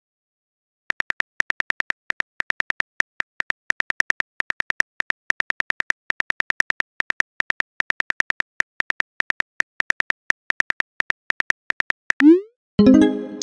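Texting-app keyboard tap sounds: rapid, even clicks, several a second, as a message is typed letter by letter. Near the end a short rising swoosh and a ringing chime as the message is sent.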